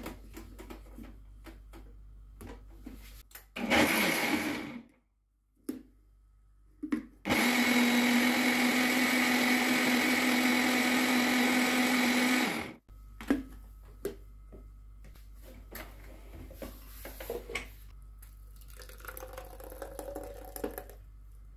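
Countertop jug blender mixing a milk and chia-seed shake: a short pulse of about a second, then, a few seconds later, a steady run of about five and a half seconds with a constant motor hum, which then stops.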